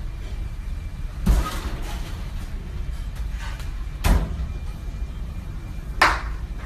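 Heavy thud about a second in as the walk-in cooler's steel door shuts, a sharp knock around four seconds, and near the end a quick metallic swipe of a chef's knife drawn along a honing steel, over a steady low hum.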